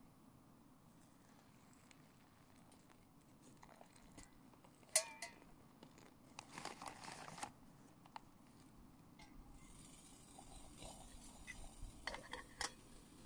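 Hot water poured from a metal camping pot into a freeze-dried meal pouch, the pour lasting about a second, with small crinkles from the pouch. A sharp metal clink comes just before the pour, and the pot clinks and clatters as it is set back on the gas-canister stove near the end.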